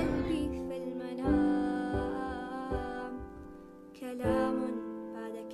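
Slow, soft background music, long notes held about a second each and changing pitch in a gentle melody.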